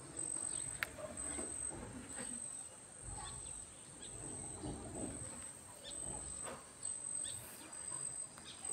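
Faint outdoor ambience: a low rumble, scattered faint small sounds and a sharp click about a second in. A faint, high-pitched pulsing tone repeats a little faster than once a second.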